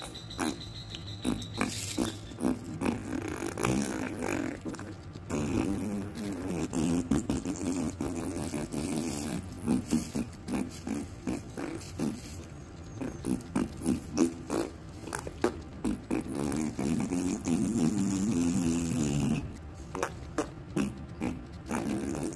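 Comic fart-like noises: long, wobbling, low rasping sounds in two stretches of several seconds each, with scattered short crackling clicks between them.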